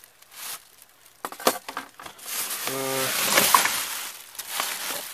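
Rummaging through a box of electronic scrap: a few light clicks and knocks of parts, then plastic bags rustling and crinkling, loudest around three and a half seconds in.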